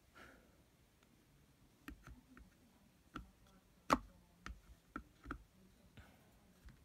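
Irregular light plastic clicks and taps as hard plastic anime figures are handled and knocked together during assembly, the loudest knock near the middle.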